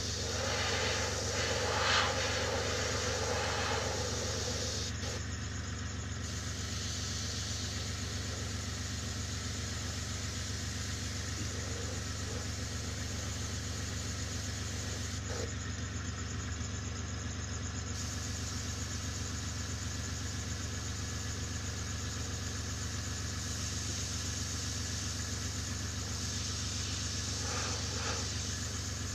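Steady hum of an air compressor running, with the hiss of an airbrush spraying paint; the hiss thins out briefly twice.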